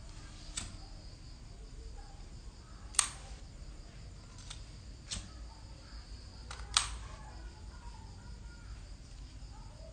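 Several sharp clicks, about six, the loudest about three seconds in and near seven seconds, over a faint steady high-pitched trill.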